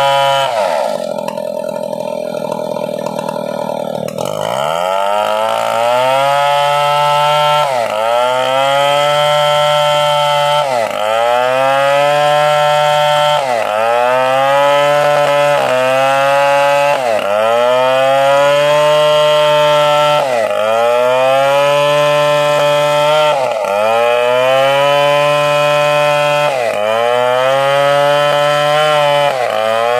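Stihl two-stroke chainsaw at high revs while sawing a coconut trunk into planks. About a second in, the engine speed falls away sharply and climbs back up around four seconds. From then on the pitch dips and rises again about every three seconds.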